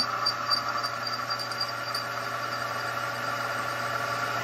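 Milling machine spindle running with a 5/8-inch drill bit cutting dry into a cast iron handwheel hub, enlarging its pilot hole: a steady machine hum and cutting noise, with a light rapid ticking over the first two seconds.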